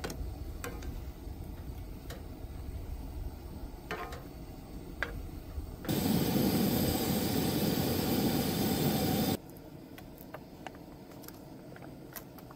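Fajita meat and peppers sizzling in a cast-iron skillet on a propane camp stove. The sizzle is loud and steady for about three and a half seconds from just before the middle, then cuts off suddenly. Around it are a quieter low rumble and a few light clicks and taps.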